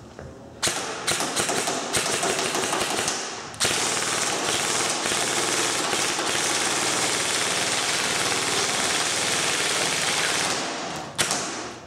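JG M4A1 Enhanced airsoft electric gun (AEG, version 2 gearbox) firing on an 11.1 V LiPo battery: quick single semi-auto shots for about three seconds, then one continuous full-auto burst lasting about seven seconds, and a last single shot near the end.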